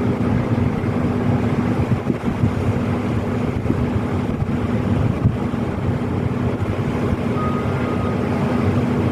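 Steady low hum of ship's machinery, one unchanging tone over a deep rumble, with wind buffeting the microphone.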